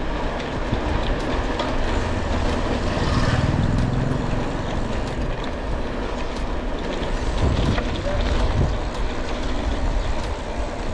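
Wind on the microphone and road traffic, heard from a moving bicycle. A motor vehicle passes about three seconds in, its engine note rising and falling, and another passes around eight seconds in.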